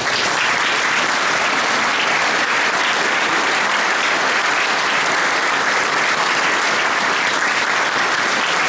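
A large crowd applauding steadily in a hall, a dense even clatter of many hands clapping that starts suddenly and keeps up without letting off.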